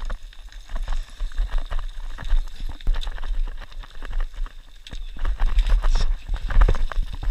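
Hiking boots stepping and sliding down loose scree and rock, crunching irregularly, with a trekking pole's tip striking the stones.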